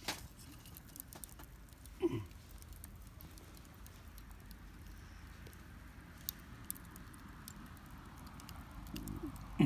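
Small wood campfire crackling, with scattered sharp pops. There is a knock just after the start and another about two seconds in, as firewood is laid on the fire.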